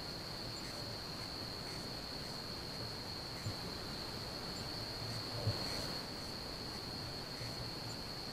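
Night insects, crickets, chirring in one steady, unbroken high trill. Two soft, low bumps come through faintly about a third and two-thirds of the way in.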